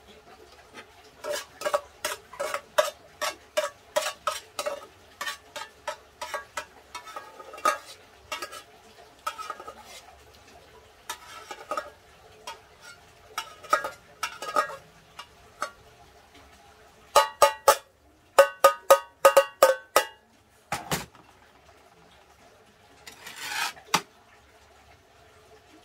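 A metal spoon clinks and scrapes against a metal cooking pot in many quick, ringing strikes as the last of the mixed rice is scraped up. A quicker cluster of clinks comes near the end, then a dull knock and a brief scrape.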